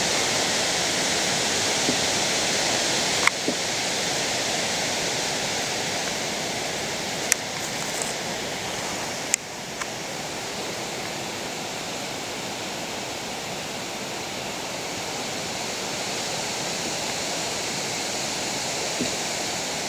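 Steady rushing noise outdoors, with a few short sharp clicks about three, seven and nine seconds in.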